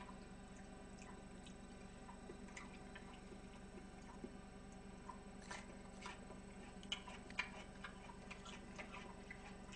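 Quiet eating sounds: faint chewing and scattered light clicks of chopsticks against a bowl of acorn jelly salad, the clicks coming more often from about halfway through.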